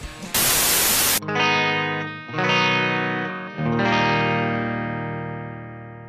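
A short burst of hiss, then a black Stratocaster-style partscaster electric guitar with single-coil pickups strumming three chords through a Marshall-style amp tone, the last chord left ringing and slowly fading.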